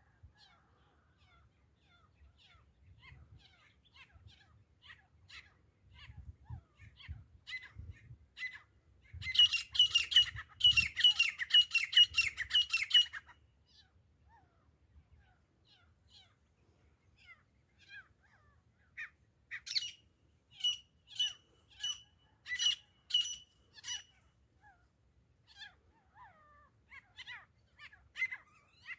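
Grey francolin calling: a run of repeated notes that builds from faint into a loud, rapid string. A second bout comes a few seconds later, and another begins near the end.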